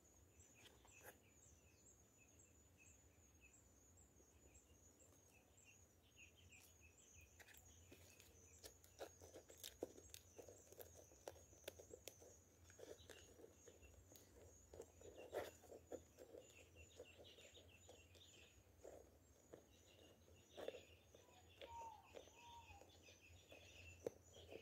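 Near silence in the woods: a faint, steady, high-pitched pulsing chirp and repeated bird calls, with faint clicks and scrapes from about a quarter of the way in as a jataí stingless-bee nest is pried by hand out of a wooden bait trap.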